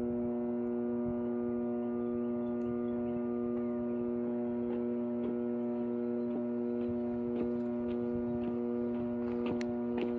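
Microwave oven running with two AA batteries inside: a steady electrical hum with a strong low tone, and faint scattered ticks that come more often near the end.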